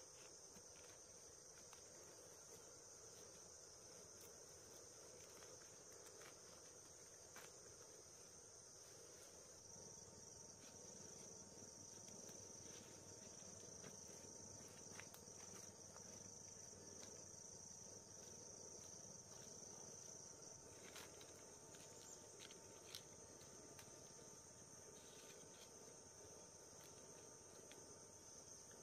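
Faint, steady, high-pitched insect chorus that swells a little about a third of the way in, with scattered light clicks.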